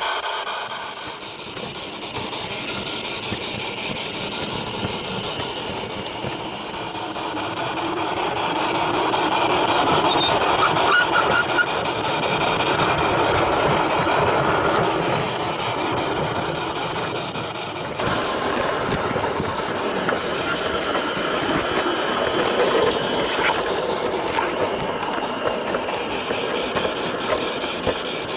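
Garden-scale model train running on outdoor track: a steady rolling and mechanical running noise from the wheels and drive, with short sharp clicks of wheels over the rails in the later part.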